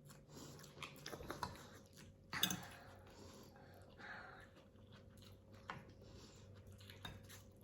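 Quiet eating sounds: soft chewing and scattered small clicks of utensils, with a brief louder noise about two and a half seconds in.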